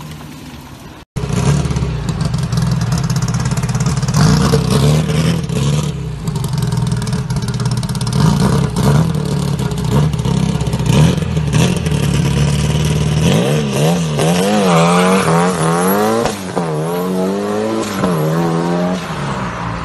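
Classic VW Beetle's air-cooled flat-four engine running loud as the car pulls away. In the last six seconds it is revved up and down over and over in quick swings.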